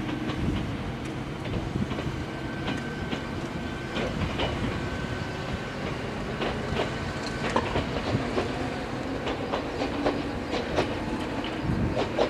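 Omi Railway 820 series two-car electric train passing, its wheels clicking over rail joints above a steady running rumble, with a steady high tone for a few seconds in the middle.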